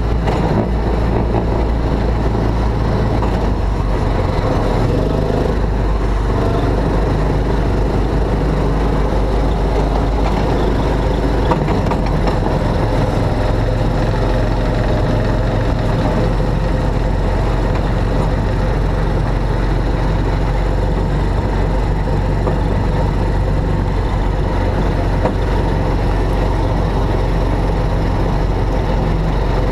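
Motor of an amusement-park track ride car running steadily, heard from the open driver's seat as the car drives along its guided track.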